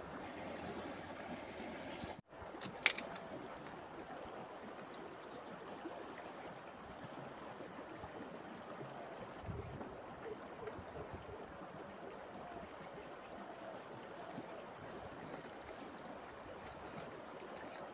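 Steady rush of river water flowing over rocks, with a brief gap about two seconds in and a couple of sharp clicks just after.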